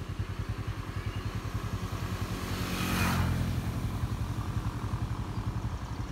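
A vehicle engine idling close by with a steady, even low pulse. About three seconds in, a brief rush of noise swells and fades over it.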